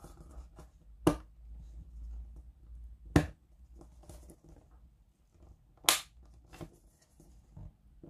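Sharp plastic clicks as a small round rocker switch is pressed to snap into its hole in the plastic dome of an LED bulb. Three loud clicks come a couple of seconds apart, with quieter taps and handling noise in between.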